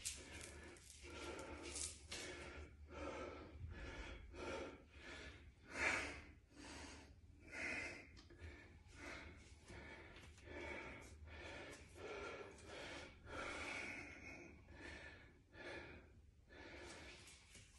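A man breathing hard through the mouth, quick heavy breaths in and out one after another, loudest about six seconds in: the effort of flexing and holding bodybuilding poses.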